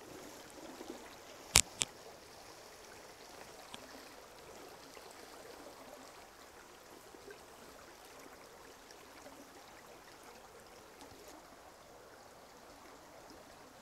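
Faint steady trickle of a shallow creek running over stones, with two sharp clicks close together about a second and a half in.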